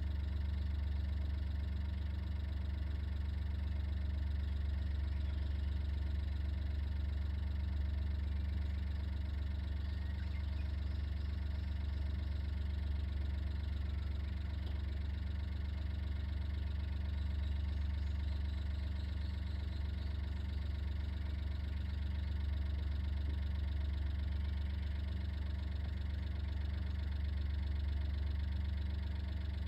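Steady low hum of an idling engine, unchanging in pitch and level.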